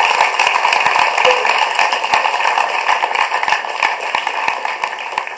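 Audience applauding, a dense patter of clapping that dies down near the end, heard re-recorded from a TV's speakers.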